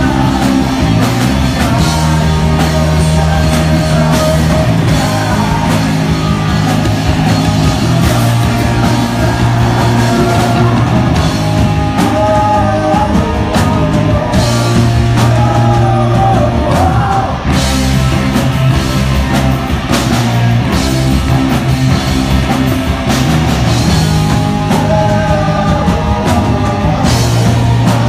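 Live rock band playing at full volume: electric guitar, bass guitar and drum kit, with a male lead singer singing over them.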